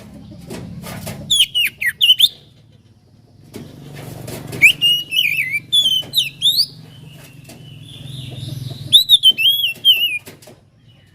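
Oriental magpie-robin singing: three bursts of quick, sliding whistled notes mixed with sharp high chirps, over a low steady hum.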